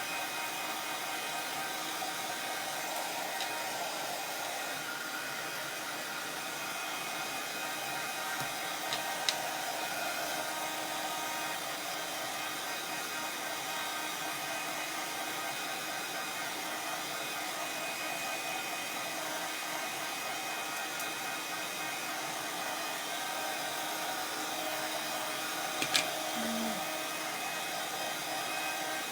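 Handheld electric hot-air blower running steadily, drying freshly applied paint glaze on a small wooden craft piece, with a couple of brief clicks along the way.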